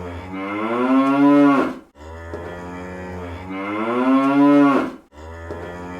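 Cartoon cow moo sound effect played on a loop: each moo lasts about three seconds, starting with a low buzzy drone and swelling louder toward the end before cutting off sharply. One moo ends about two seconds in, a full moo follows, and the next begins just after five seconds.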